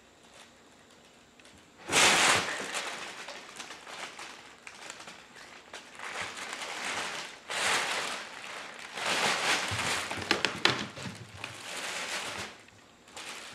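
Fabric cat play tunnels rustling and crinkling in irregular bursts as a cat scrambles through them and a person shifts them about. The loudest burst comes about two seconds in.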